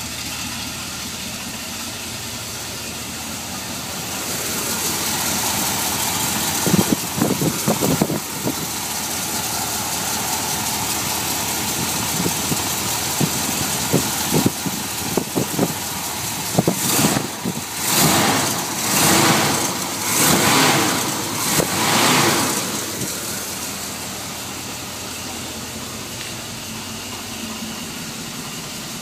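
Chevrolet 350 small-block V8 idling, then revved: the note rises about four seconds in, with a few sharp knocks around seven to eight seconds. Four quick throttle blips come between about eighteen and twenty-two seconds before it settles back to idle.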